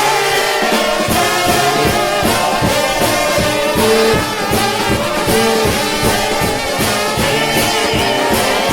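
Trombone shout band playing a fast 4/4 shout: a choir of trombones in harmony with sliding notes, over drums keeping a quick steady beat.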